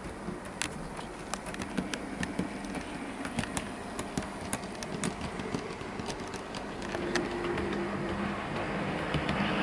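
Model train running on the layout: the Class 24 model locomotive's motor humming and its wheels clicking irregularly on the track, growing louder near the end as the train approaches.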